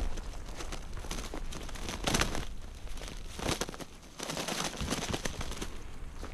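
Footsteps crunching through dry fallen leaves, with rustling as the walker pushes through low, brittle brush.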